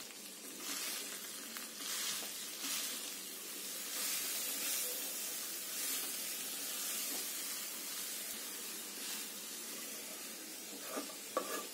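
Freshly added shredded cabbage sizzling in a hot metal kadhai with cooked chickpeas, stirred with a wooden spatula: a steady frying hiss that swells with each stir.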